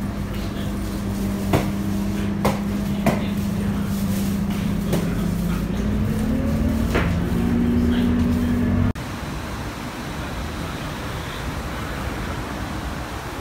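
City bus running with a steady low engine and drivetrain hum, heard from inside the cabin. The hum rises in pitch as the bus speeds up about six seconds in, and several sharp knocks and rattles come from the cabin. About nine seconds in the bus sound cuts off abruptly to a steady, even rushing noise.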